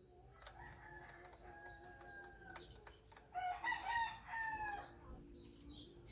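Roosters crowing: a fainter crow first, then a louder, nearer crow about three seconds in that falls in pitch at its end. A faint steady hum runs underneath.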